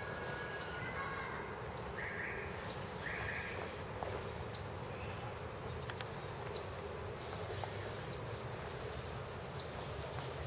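A bird repeating a short, high chirp about every second to two seconds, over a steady background hiss.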